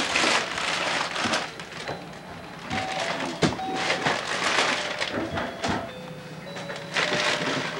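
Wrapping paper crinkling and tearing as Christmas presents are handled and unwrapped, in uneven rustles, with a sharp knock about halfway through.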